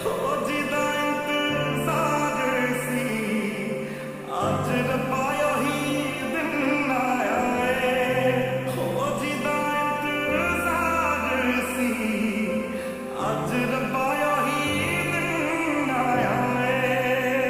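Bass-boosted, reverb-heavy Hindi film ballad: long held, ornamented vocal lines over deep sustained bass notes that change every few seconds.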